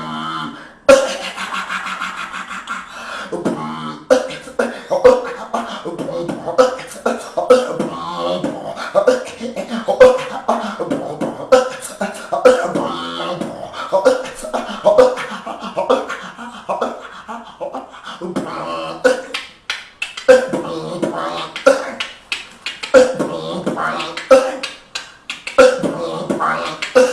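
A man beatboxing, making drum sounds with his mouth: a pulse of sharp kick- and snare-like hits, with hummed pitched vocal tones filling the gaps between them.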